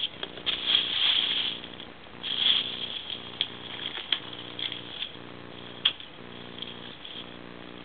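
Plastic bag and foil crinkling and rustling as pet ferrets tussle with them. The crinkling is loudest in the first three seconds, followed by a few sharp clicks and lighter rustles.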